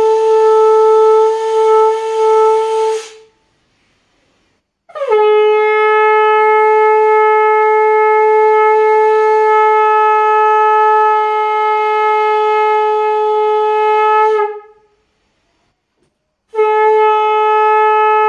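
Conch shell (shankh) blown in long blasts on one steady note. A blast ends about three seconds in; after a pause, a blast of about ten seconds follows, and another begins near the end.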